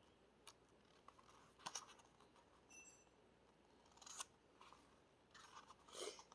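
Faint rustling and soft clicks of an album photo book's pages being handled and turned, with a couple of louder snaps of paper about a second and a half and four seconds in.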